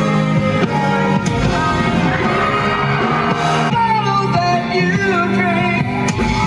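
A singer performing into a handheld microphone over backing music, amplified through a theater sound system.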